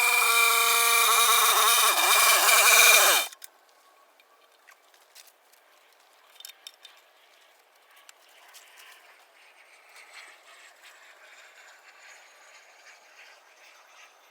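Small petrol engine running at high speed with a wavering pitch, then cutting off suddenly a little over three seconds in, leaving only faint scattered ticks.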